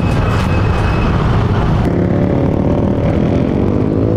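Motorcycle engines running while riding. Over the last second or so an engine speeds up, its pitch rising.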